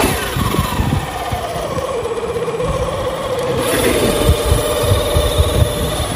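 Small electric motor and gears of a remote-control off-road toy car whining, the pitch dropping over the first two seconds and then holding steady, with wind buffeting the microphone.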